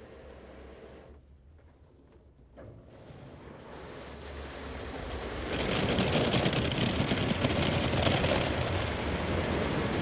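Automatic car wash heard from inside the car's cabin: a low rumble, then a rush of water spraying on the car that builds from about four seconds in and stays loud.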